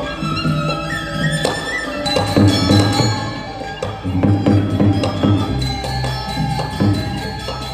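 Balinese gamelan music: bronze metallophones ringing in quick strokes, driven by solo kendang drumming. A deep low tone comes in about five and a half seconds in.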